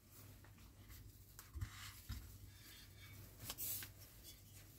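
Faint handling noise of a scale-model car bonnet being picked up off a table: two soft bumps, then a short rub or rustle about three and a half seconds in.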